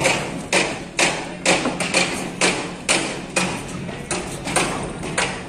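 Steady hammering: sharp blows at about two a second, evenly spaced.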